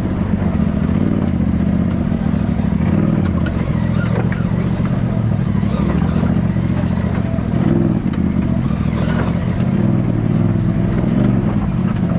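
RZR side-by-side engine running steadily at low revs while crawling over a rocky trail, with occasional faint knocks.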